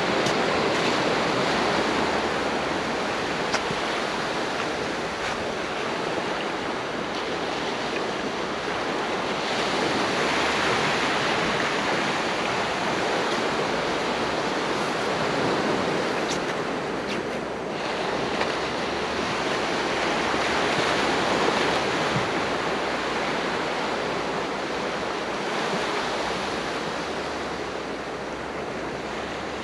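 Sea surf washing on the shore: a steady rush that swells and eases over several seconds, with wind on the microphone.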